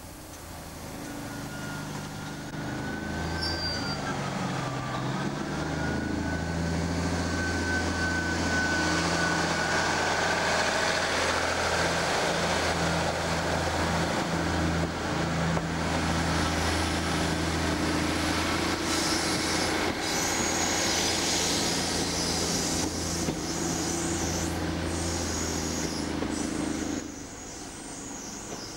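Heavy machinery rumbling steadily with an engine-like hum and a wavering high squeal. It builds up over the first several seconds and drops away sharply about a second before the end.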